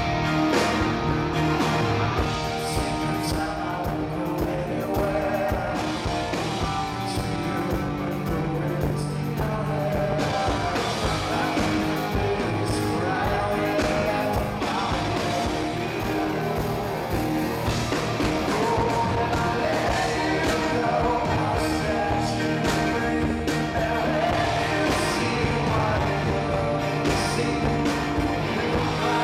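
Live rock band playing at full volume: a male lead vocal sings over electric guitar, with a steady drum beat.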